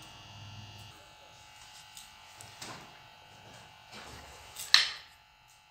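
Handling noise from a PVC-cased battery pack being picked up: a few light rustles and clicks, then one sharp knock near the end, over a faint steady electrical buzz.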